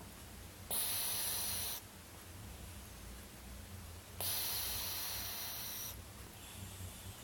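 A sleeping cat snoring: two hissing snores, the first about a second long near the start, the second longer about four seconds in.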